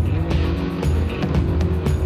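Background music with a steady beat, bass notes and percussion.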